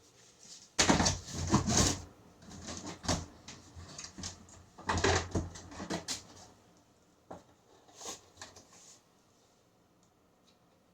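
Plastic storage tote lid being pushed, knocked and rattled in a series of irregular clatters as it fails to latch. The handling stops about nine seconds in.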